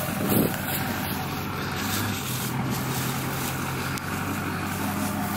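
Pickup truck engine running steadily at idle, a low even hum, with a brief bump about a third of a second in.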